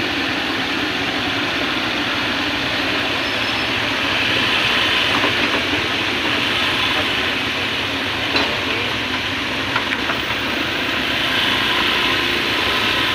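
Hydraulic excavator's diesel engine running steadily, with a single sharp knock about eight seconds in.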